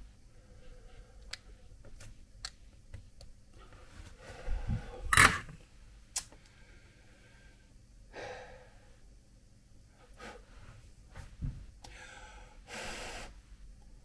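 Hands working a PL259 coax connector and cable: scattered light clicks, a louder knock about five seconds in, and a few breathy exhalations.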